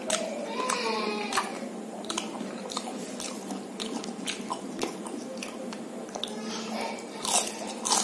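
Close-miked eating: a person biting and chewing fried samosa and jalebi, with irregular crunches and mouth clicks, the loudest near the end.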